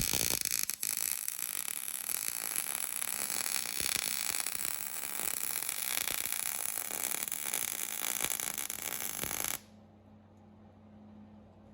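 Electric welding arc crackling steadily as a washer is welded onto a cracked steel seat bracket, cutting off abruptly near the end; a faint low hum remains after.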